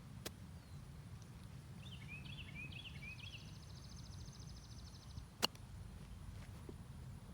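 Birds singing outdoors: a few quick chirps followed by a fast, even trill, over a low steady rumble of wind. A sharp click sounds about five seconds in.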